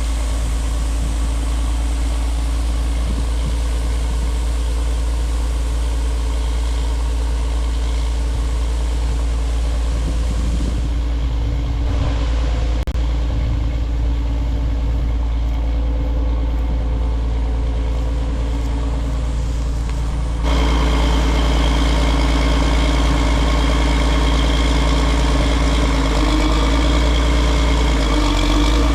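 Heavy diesel engine of harvest machinery running steadily with a deep, even rumble. About two-thirds of the way through, the sound abruptly turns louder and brighter.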